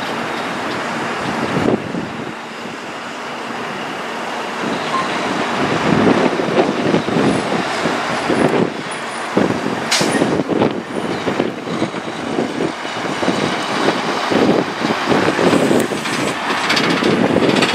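A Peterbilt semi tractor pulling a dry-van trailer drives slowly past, the diesel running under a continuous rumble of tyres and chassis, with many irregular knocks and rattles from the rolling trailer. There is one sharp clank about ten seconds in.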